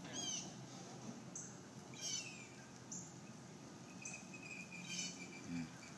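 Faint outdoor ambience: birds chirp in short sweeping calls near the start, about two seconds in and about five seconds in, over a thin high insect buzz and a faint low hum.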